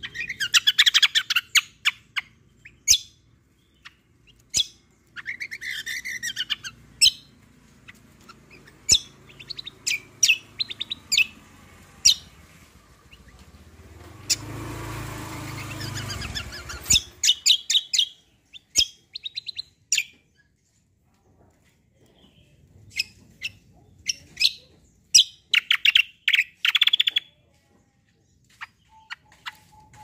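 Caged songbird, kept as a kecial kombo, singing in clusters of sharp, high chirps and quick trills. A low rumbling noise comes in for about three seconds midway.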